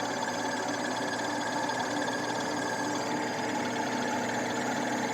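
Scion xB engine running steadily at idle with a fast, even ticking over a steady hum. It is an unexplained noise that the owner is asking about.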